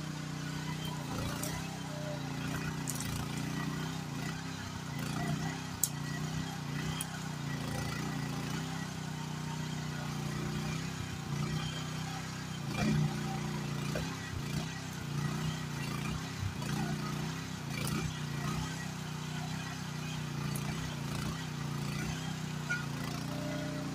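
Groundhog KH14G mini excavator's engine running steadily while the boom and rake attachment work through brush, its note wavering a little as the hydraulics take load. A few sharp cracks and clicks from branches and the attachment break through now and then.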